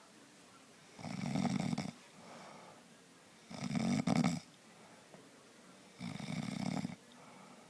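A man snoring: three snores, each about a second long and roughly two and a half seconds apart, with fainter breathing between them.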